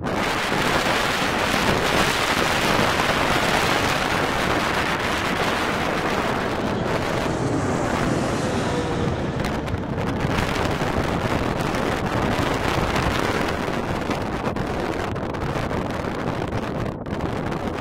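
Jet engine noise from a Boeing 777 passing low overhead on final approach, loudest as it comes over, with a faint engine whine that drops in pitch about halfway through as it goes by. Wind buffets the microphone.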